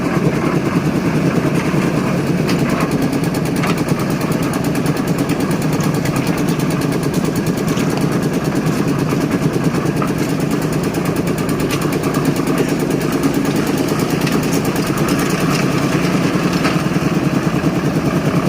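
A small engine running steadily at a constant speed, a fast, even pulsing drone with no change in pitch.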